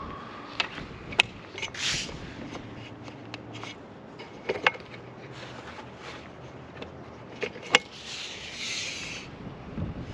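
Scattered sharp clicks and knocks with light scraping as roof-rack cross-bar brackets and screws are handled and fitted. A rustle of about a second comes near the end.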